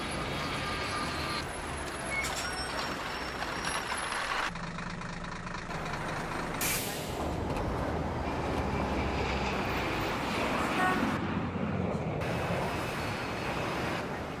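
Street traffic of buses and taxis running, with a sharp air-brake hiss about seven seconds in. The traffic sound changes abruptly several times.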